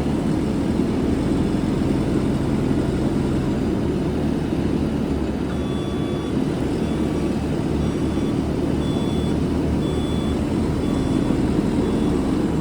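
JCB 3CX14 loader backhoe's diesel engine running steadily. About halfway in its reverse alarm starts beeping, about once a second, as the machine backs up.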